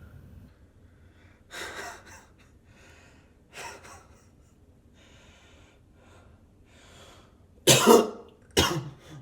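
A person coughing: two lighter coughs in the first few seconds with breathing between, then two loud, harsh coughs near the end.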